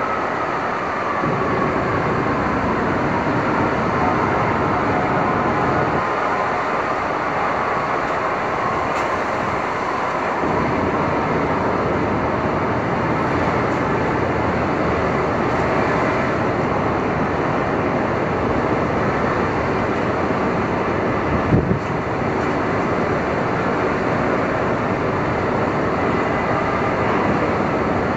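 Manhattan street ambience on a stormy day: a steady wash of city traffic noise, with a faint tone sliding slowly down in pitch over the first few seconds and a single sharp knock about two-thirds of the way through.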